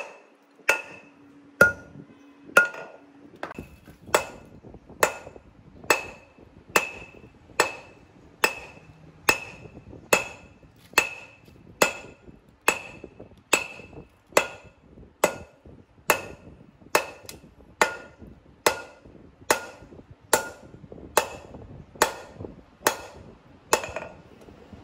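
Hand hammer striking steel on an anvil in a steady rhythm, a little under two blows a second, each blow with a short metallic ring: twisted steel bar being forged into a knife blade.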